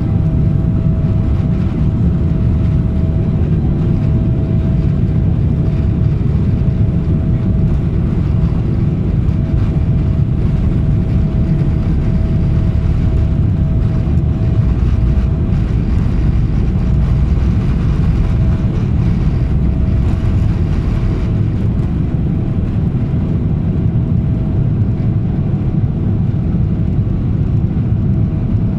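Boeing 777-300ER's GE90 turbofan engines at takeoff thrust, heard from inside the cabin: a loud, steady low rumble with a constant hum over it, through the takeoff run and lift-off.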